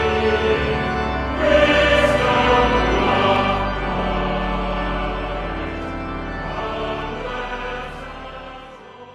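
Choral music with sustained voices, swelling about a second and a half in and then fading out gradually toward the end.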